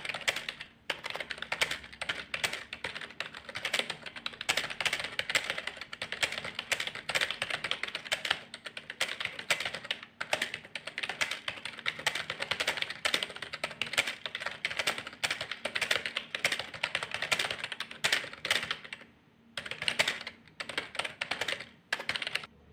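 Fast, continuous typing on a computer keyboard, a rapid stream of key clicks with a brief pause about three-quarters of the way through, stopping near the end.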